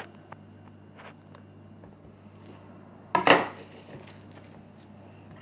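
Homemade glue-and-borax slime being handled: a few faint clicks, then one louder squishing burst about three seconds in.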